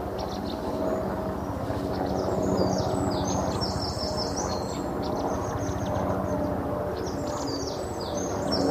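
Recorded birdsong: clusters of quick chirps and twitters over a steady low hum. It is the kind of birdsong that the Big Brother live feed played in place of the house audio to mask talk that could not be broadcast.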